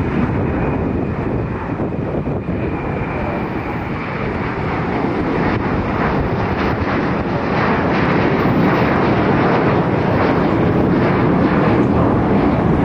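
Airbus A321 jet engines running at takeoff power, the noise growing louder about five seconds in and holding at that level.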